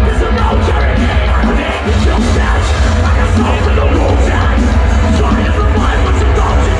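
Live metalcore band playing loud: drums, guitars and shouted vocals, with a heavy low end, heard from within the crowd.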